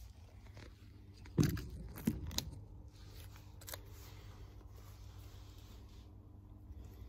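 A few sharp knocks and rustles about a second and a half in, then a piece of cardboard rubbing against a chromed exhaust tip: a soft, steady scraping that fades out near the end.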